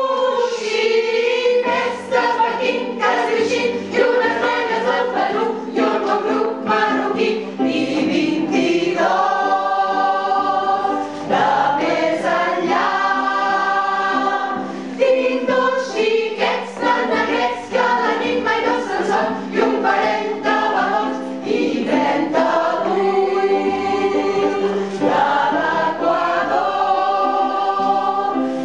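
A small choir of mostly women's voices singing a song together.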